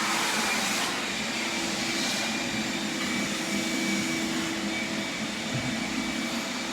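Vacuum cleaner running steadily, a continuous motor whine with a steady hum.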